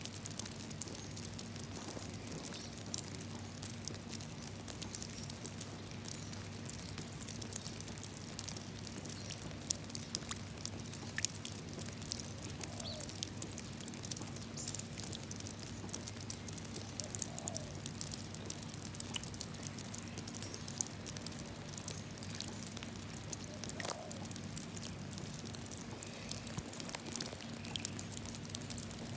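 Rain falling into a puddle: a dense, irregular patter of drops splashing on water, over a steady low hum.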